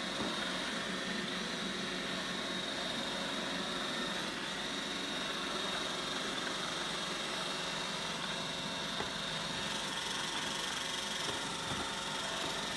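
iRobot Roomba 866 robot vacuum running: a steady whirring of its motors with a thin high-pitched whine over it.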